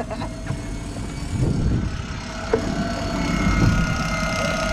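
Boat's outboard motors running steadily at idle: a low rumble with a thin, steady whine over it.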